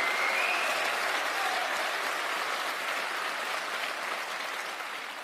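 Large theatre audience applauding, the applause slowly dying away.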